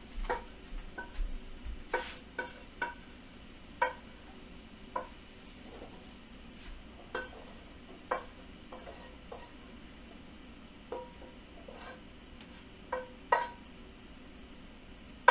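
Wooden spoon knocking and scraping against a frying pan as scrambled eggs are scooped out. It comes as a scattered series of about fifteen light clinks, each ringing briefly.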